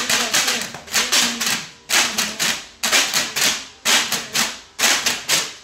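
Several folding paper hand clappers being shaken hard in a shared rhythm: a quick flurry of sharp clacks about once a second.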